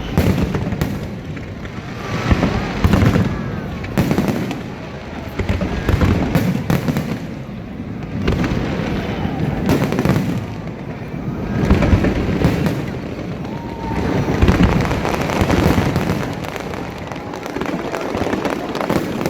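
Fireworks display: a dense run of bangs and booms with crackling, swelling in waves every couple of seconds.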